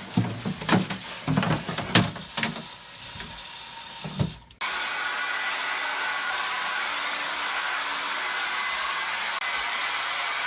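A few seconds of irregular knocks and rushing noise, then, after an abrupt cut about four and a half seconds in, a handheld hair dryer blowing steadily.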